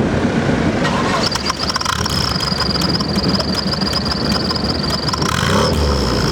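MGB engine running with a fake turbo whistle pushed into its exhaust tailpipe. A thin, steady high whistle sets in about a second in over the engine's rumble.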